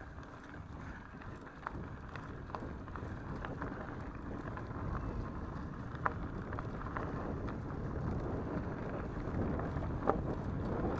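Mountain bike rolling fast over a dirt forest path: steady tyre and rolling noise with wind on the microphone, growing a little louder, and scattered sharp clicks and rattles from bumps, the strongest about six and ten seconds in.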